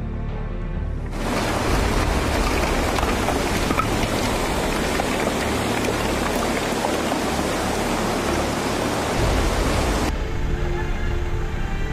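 Steady hiss of heavy rain, starting suddenly about a second in and cutting off near the end, with background music underneath.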